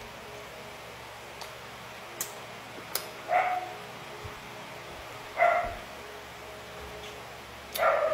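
A dog barking: three short barks about two seconds apart, the last one longer and doubled, with a few faint clicks between.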